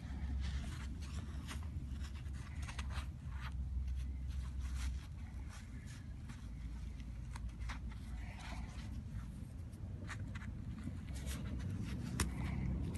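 Fingers rubbing and scratching dirt off a freshly dug Lincoln cent: a run of short scratchy rubs and small clicks, over a low rumble of handling noise that eases about halfway through.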